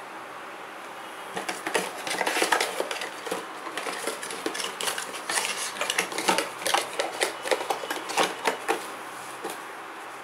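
Hands handling a cardboard phone box and its contents: irregular rustling, scraping and light knocks, starting about a second and a half in and stopping near the end.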